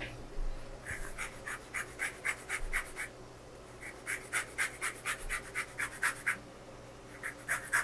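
A lemon being scraped over a fine rasp grater in quick, rhythmic strokes, several a second. It comes in two runs, a short pause, and starts again near the end.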